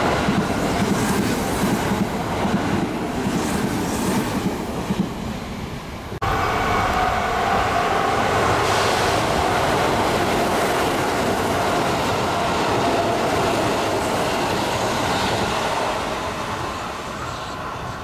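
Sanyo Electric Railway electric trains passing through a station at speed. A sudden cut about six seconds in leads to a second train running close by, which fades slightly near the end.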